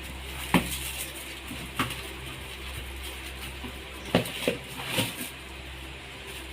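A gift package being worked open by hand, with about five sharp clicks and knocks, like a small metal pan in its packaging being handled.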